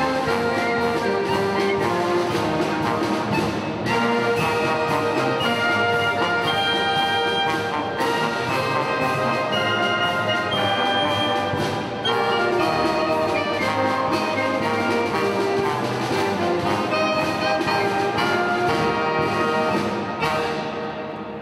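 Military band of brass, woodwinds and drums playing a piece together, with regular drum strokes marking the beat. Near the end the band stops and the last chord dies away.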